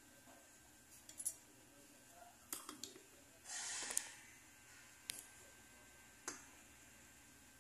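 A scattering of light clicks and knocks with a brief rustle about three and a half seconds in: handling sounds as a metal bangle is laid down on a soldering brick and the phone camera is picked up and turned.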